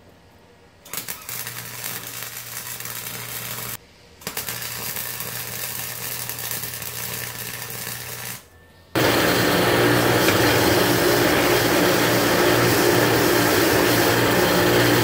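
Arc welding a nut onto the end of a steel bolt: a steady crackling buzz in three runs, with short breaks about four and eight seconds in, the last run louder.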